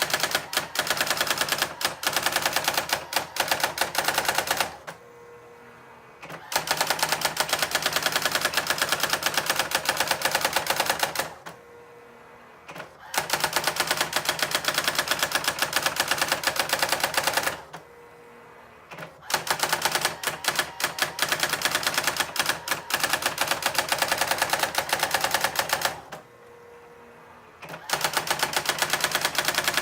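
Brother SX-4000 electronic typewriter striking characters in rapid, even runs of clicks lasting several seconds each. It pauses briefly four times along the way.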